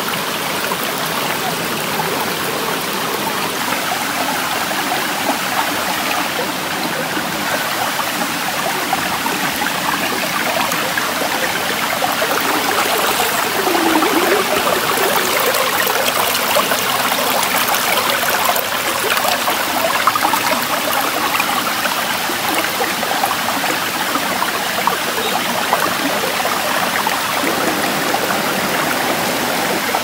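Shallow stream water running and trickling over rocks, a steady rushing that grows a little louder about halfway through.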